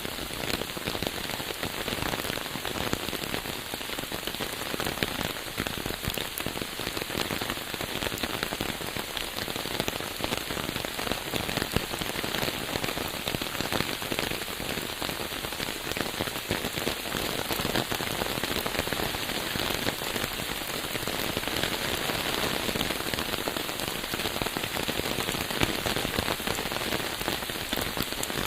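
Steady rain falling, a dense, even patter of countless drops with no let-up.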